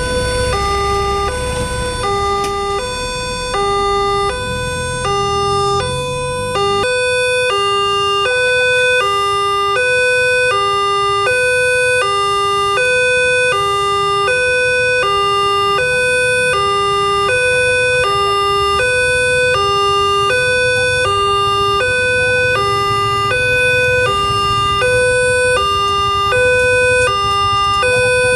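Railway level-crossing warning siren (a Multitec electronic siren) sounding its alarm: two steady tones alternating high-low, about one pair a second, without a break. A low rumble sits under it for the first seven seconds or so, then stops.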